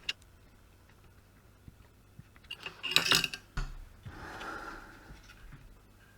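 Small metallic clicks and taps of hand soldering work on a circuit board, loudest about three seconds in, followed by a soft hiss lasting about a second and a half.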